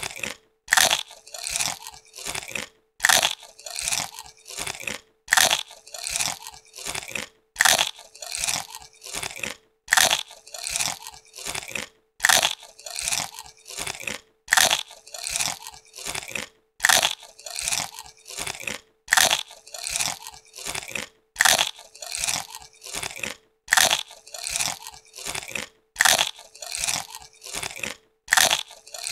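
Potato chips being bitten and chewed: a loud crisp bite about every two seconds, each followed by a few smaller chewing crunches, in an even repeating pattern. A faint steady hum runs underneath.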